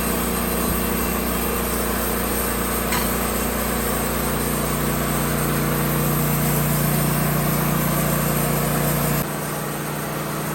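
Woodmizer LT15 sawmill running steadily under load, its engine and band blade cutting through a large pine log. A steady hum strengthens about four seconds in, then the low end drops off abruptly near the end.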